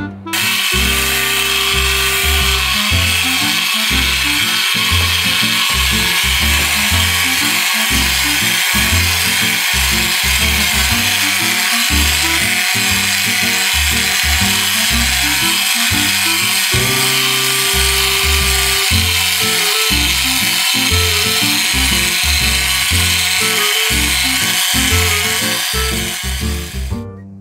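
Background music with a changing bass line, over a steady, even whirr typical of the 1960s Modern Toys siren patrol jeep's motor and gears running. Both cut off shortly before the end.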